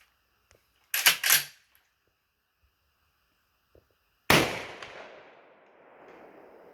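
12-gauge pump-action shotgun racked with a quick two-part clack about a second in, then fired a few seconds later: one loud shot whose echo fades away over the next two seconds.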